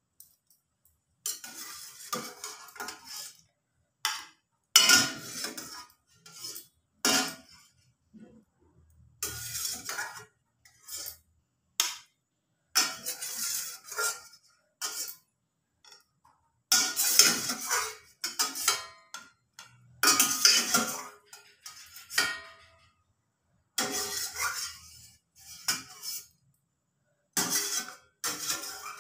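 Steel spoon scraping and clinking against the inside of a stainless steel pot as boiled carrot pieces are scooped out. It comes in about a dozen separate bouts of a second or two, with short silences between.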